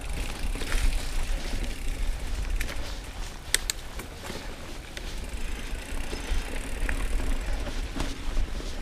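Mountain bike riding over a dirt singletrack, heard from a handlebar-mounted camera: tyre and trail noise over a steady low rumble, with the bike's clicks and rattles over bumps, two sharp ones about three and a half seconds in.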